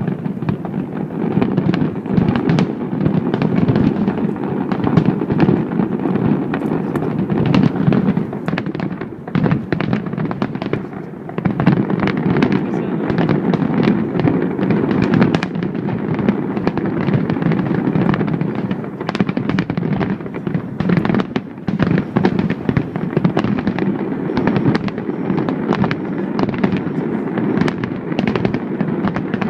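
Fireworks display heard from a distance: a dense, continuous barrage of overlapping bangs and crackles.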